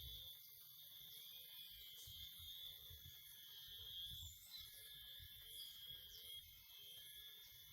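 Near silence, with a faint, steady high insect drone and a soft low rumble underneath.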